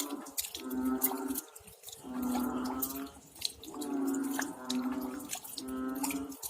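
Rain dripping in scattered sharp drops, with repeated low animal calls over it. Each call lasts under a second and the calls overlap at slightly different pitches.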